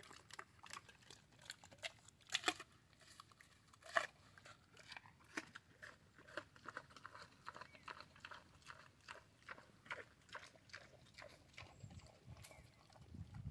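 A pig chewing a fallen apple: quiet, repeated crunching and smacking of the jaws, with the sharpest crunches about two and a half and four seconds in and a steady run of chewing after that.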